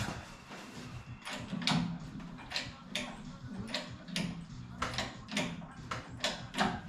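Hand-pumped hydraulic engine hoist being worked stroke by stroke to lift a truck cab: a short sharp mechanical sound with each pump stroke, about two to three a second, starting about a second in.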